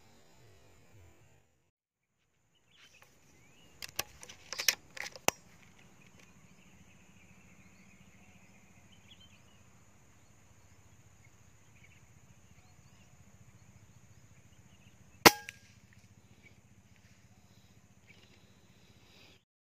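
A single sharp air rifle shot about fifteen seconds in, the loudest sound, fired at a perched spotted dove. Several sharp clicks come a few seconds in, over a faint steady background with a thin high tone.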